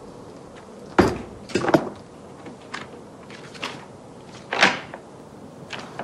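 A briefcase being handled and its latches snapped open: about half a dozen short sharp clicks and knocks, the loudest about a second in.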